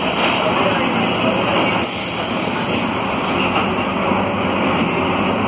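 Cabin noise inside a Volvo B9SALF city bus, its Volvo D9A diesel engine running with a steady rumble.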